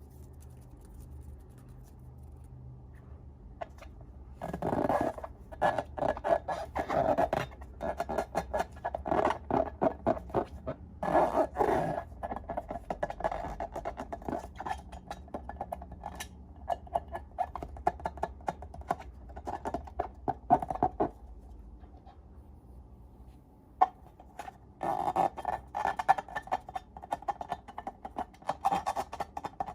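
Slime being worked by hand, giving runs of close-set sticky crackles and clicks. It goes quiet for a few seconds past the middle and then starts again near the end.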